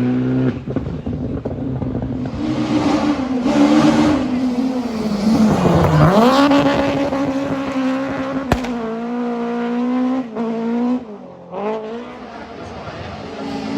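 Rally car engine at full throttle, its note dropping sharply and climbing again about six seconds in, then holding high, with a single sharp crack a couple of seconds later.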